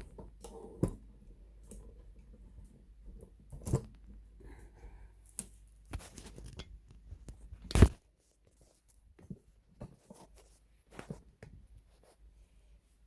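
Hands fitting small parts and cables into a sewing machine's floppy disk drive: scattered light clicks and knocks, with one sharp knock near the middle, then only faint clicks.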